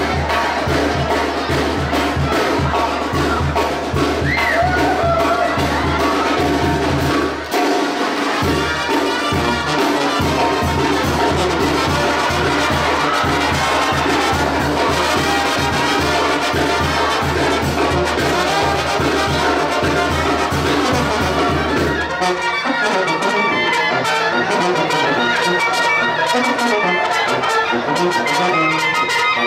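Brass band playing, trumpets and trombones over a sousaphone bass line and a steady beat. About three-quarters of the way through, the bass and beat drop out and the horns carry on alone.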